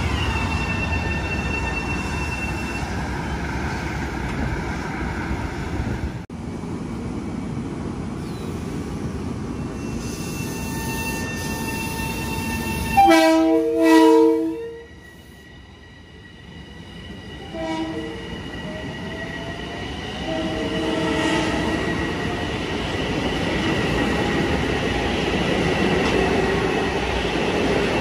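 Long Island Rail Road commuter trains: a steady rail rumble, then a loud two-part horn blast about halfway through and a short horn toot a few seconds later. Near the end a rising whine over the rumble as a train picks up speed.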